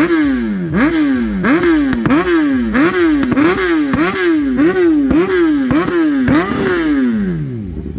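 BMW S1000RR HP4's inline-four engine being blipped while standing, about a dozen quick revs in a row, each rising sharply in pitch and falling away, before the revs drop off near the end.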